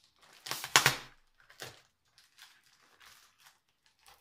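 Plastic packaging being picked at and pulled open by hand: a burst of sharp crackling, loudest just under a second in, then a few lighter crinkles and clicks.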